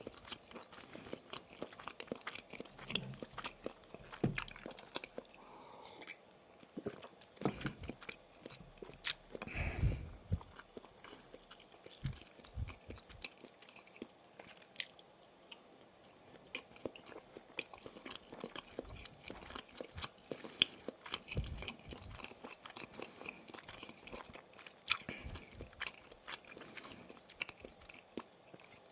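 Close-miked biting and chewing of Maxbong sausage sticks: irregular wet chewing clicks and small crunches, with a louder bite about ten seconds in.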